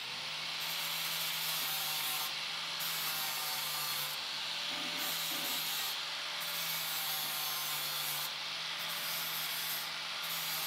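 Angle grinder grinding down welds on the Chevy C10's sheet-metal bed floor: a steady motor whine under the rasp of the disc on steel. The high hiss of the grind drops out briefly several times.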